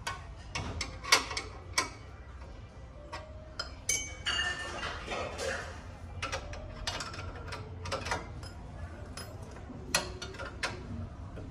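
A wrench working on the mounting nuts of a Royal Enfield Bullet's exhaust silencer as they are tightened: irregular metallic clicks and clinks, with a few brief squeaks about four seconds in.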